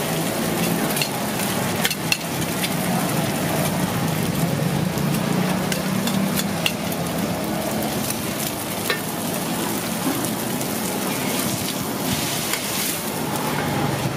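Pad Thai noodles and egg sizzling in oil on a large flat pan, with metal spatulas scraping and tapping against the pan surface several times as the noodles are turned and folded.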